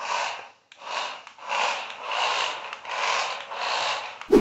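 Toy RC cars' small electric gear motors whirring and their tyres scrubbing on a tile floor, in repeated swells as the cars speed up and drift. A single sharp knock near the end.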